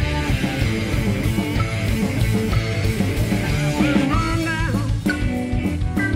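Live rock band: electric guitar played over a drum kit, with bent notes sliding up in pitch about four seconds in.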